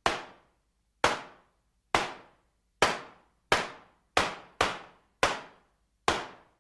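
Nine sharp bangs at uneven intervals, each dying away within about half a second, coming closer together about halfway through.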